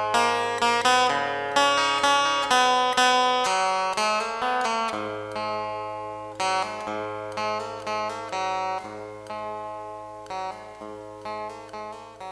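Background music: a plucked acoustic guitar picking notes and chords that ring and decay, fading out near the end.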